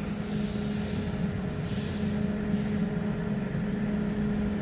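Air-cooled handheld laser welder's cooling unit running at idle between welds: a steady low machine hum with a steady tone, and a couple of faint short hisses about two seconds in.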